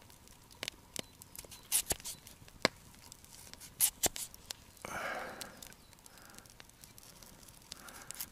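Knife slicing through a raw carrot onto a wooden log round: sharp, irregular clicks as each cut goes through and the blade taps the wood.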